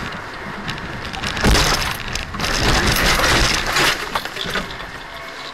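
A car collision heard from inside the car: a loud impact about a second and a half in, then a couple of seconds of crunching and breaking noise that dies away.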